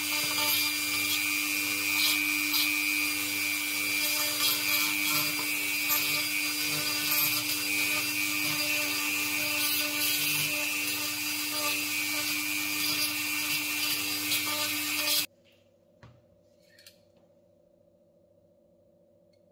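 Handheld high-speed rotary tool with a small pointed grinding bit running steadily, shaping an epoxy repair on cast iron, with a constant whine and gritty hiss. It stops abruptly about fifteen seconds in, leaving near silence with a couple of faint taps.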